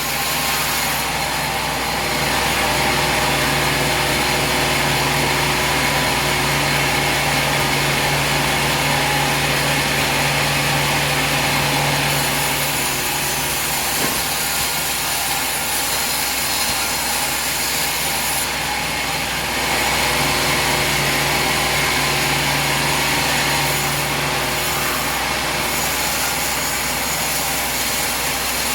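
Sawmill machinery running with a steady engine hum and a wide noisy whine. It gets louder twice for several seconds at a time, as when the saw works through the wood.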